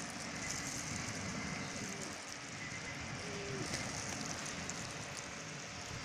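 Outdoor beach ambience: wind buffeting the phone's microphone over a steady wash of surf, with faint light clicks of pigeons pecking and stepping on the pebbles.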